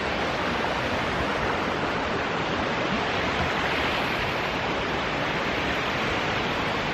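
Steady rush of falling water from a mountain waterfall, an even, unbroken wash of noise.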